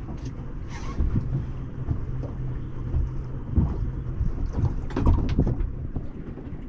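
Wind buffeting the microphone on a small boat: a low rumble over a faint steady hum, with a few sharper knocks about one, three and a half and five seconds in.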